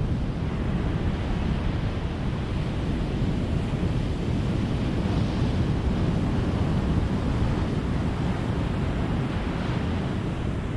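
Ocean surf: a steady low rumble of breaking waves, with the hiss of a wash swelling about halfway through and again near the end.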